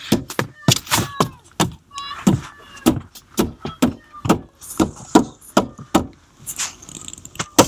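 A quick series of sharp knocks and thumps, two or three a second, mixed with a few short vocal cries that rise in pitch.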